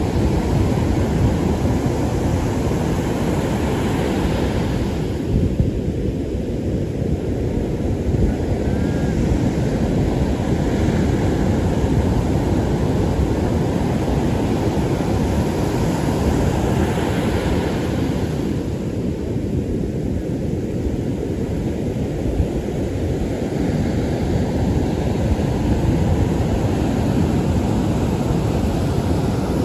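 Heavy surf breaking and washing up a beach, with the hiss of the wash swelling several times, under steady wind rumble on the microphone.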